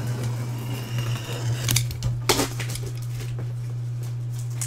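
Hands handling a shrink-wrapped cardboard card box, the plastic wrap crinkling in a few short bursts about two seconds in, over a steady low hum.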